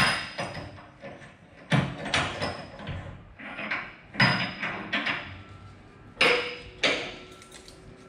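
Sharp metal clanks from a steel screw-type dump truck tailgate latch worked by hand: the T-handle and latch hardware knock against the steel, each clank with a short metallic ring, several of them in pairs a second or two apart.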